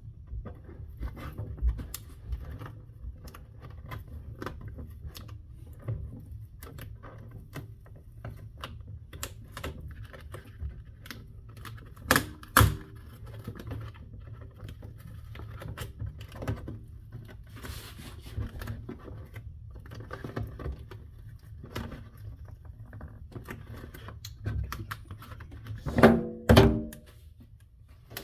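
Skateboard griptape being peeled off a wooden deck by hand, its adhesive letting go with many small irregular crackles and ticks. There are louder knocks about halfway through and a burst of heavier thunks near the end as the board is handled.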